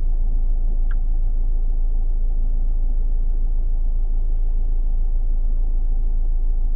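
Steady low rumble of a Volvo XC90 idling, heard inside the cabin, with a brief faint blip about a second in.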